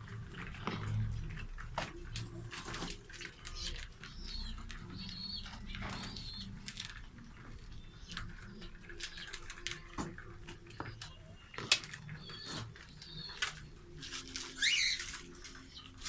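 Pet birds calling with short chirps and one louder sweeping call near the end, among frequent light clicks and taps.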